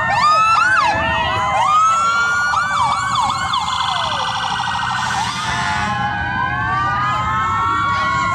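Several sheriff's patrol-car sirens sounding at once, overlapping: slow rising and falling wails mixed with fast yelps, and a rapid warble about halfway through.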